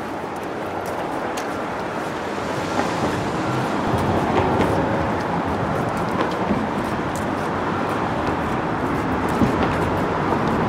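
Steady city street traffic noise, an even rumble and hiss of passing vehicles that slowly grows a little louder.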